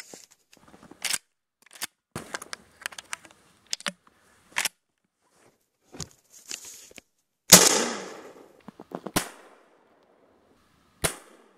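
12-gauge Maverick 88 pump shotgun firing a red flare signal cartridge about 7.5 s in, the report trailing off over about a second. Sharp clicks and clacks of the gun being handled come before it, and two more sharp cracks follow near 9 and 11 s.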